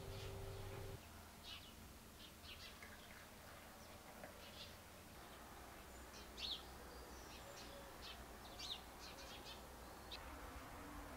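Small birds chirping faintly, scattered short high calls over quiet background noise. A low steady hum cuts off about a second in.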